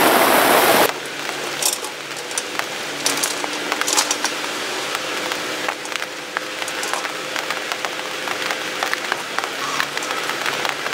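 Heavy rain for about the first second, then a mini excavator digging: a steady engine hum under many scattered clicks and cracks as the bucket works through soil and rubble.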